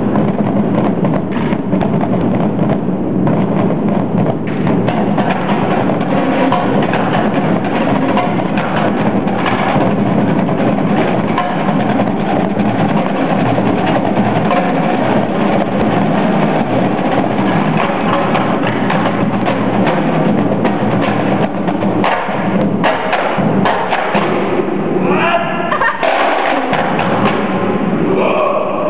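A marching drumline playing continuously together: snare drums, multi-drum tenors and a line of bass drums.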